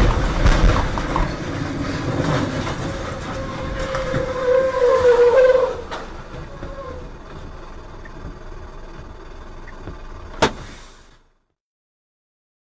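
Truck crash heard from a dashcam: a sudden loud bang, then several seconds of grinding and scraping with a wavering high squeal that peaks about five seconds in. After that the sound drops to a steadier noise, with one sharp click near the end before it cuts off.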